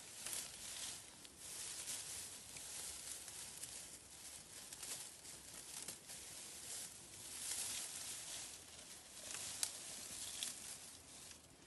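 Leafy branches rustling and crackling as they are pushed and tucked into a bamboo shelter frame, in uneven surges, with a single sharp click near the end.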